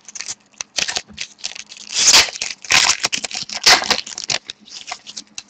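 Trading card pack wrapper being torn open and crinkled by hand, in a run of irregular sharp rustles and rips.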